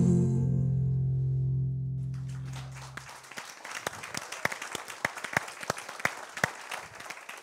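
The song's final guitar chord rings out and fades away over about three seconds, then an audience claps in a scattered round of applause.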